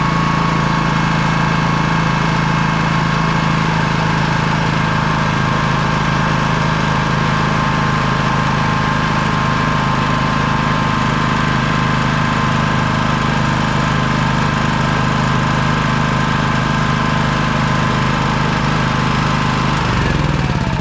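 Honda GX240 single-cylinder engine of an EB3800X generator running steadily at governed speed on its new carburetor. Near the end its pitch drops as the engine speed is turned down to bring the output to about 125 volts.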